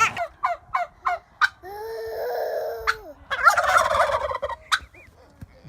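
Bird calls: a quick run of short calls, then one longer held call about two seconds in, and a rough burst of calling near four seconds.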